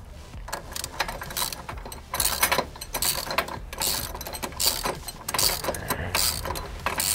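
Socket ratchet wrench with a deep 9/16 socket clicking as it runs lock nuts down onto the steel U-bolts of a boat trailer guide-on bracket. The clicks come in short runs as the handle is swung back and forth.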